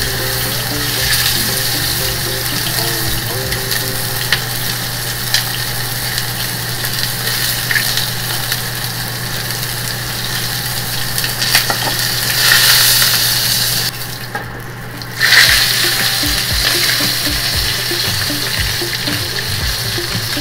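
A block of pork belly sizzling as it sears in a frying pan heated with no oil added, spitting in its own rendered fat. The sizzle drops away for about a second two-thirds of the way through, then comes back loudly, over a steady low hum.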